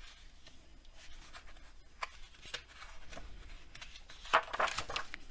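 Paper of a braille book being handled: faint scattered rustles and small clicks, with a louder burst of rustling about four and a half seconds in.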